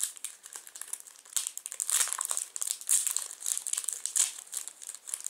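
Clear plastic packaging crinkling and crackling as it is worked open and pulled at by hand, busiest in the middle.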